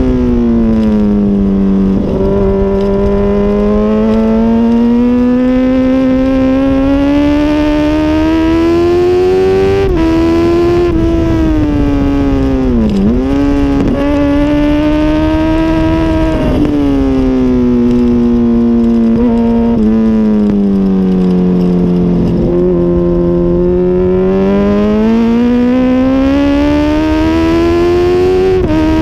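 2006 Honda CBR1000RR's inline-four engine at racing speed, heard from a camera on the bike's tail. Its pitch sweeps down and back up again and again as the rider brakes, shifts gears and accelerates through the corners, with a sharp brief dip about thirteen seconds in.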